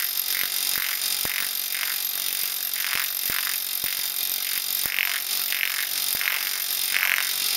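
Planishing hammer fitted with a 1.5-inch crown die, running at low pressure and hammering a small high-crown sheet-metal piece smooth: a steady high hiss with scattered sharp clicks as the piece is turned under the die. The flatter die is smoothing out the small dings left by the high crown die.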